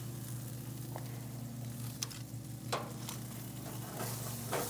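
Chicken and ribs sizzling on the grates of a Monument Denali 605 Pro gas grill, over a steady low hum, with a few sharp clicks as the meat is moved between racks.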